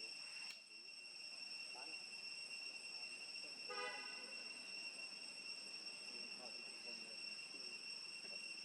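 A steady, high-pitched insect chorus, crickets or cicadas, drones on, with a faint click about half a second in and a short horn-like toot about four seconds in. Faint voices are heard in the background.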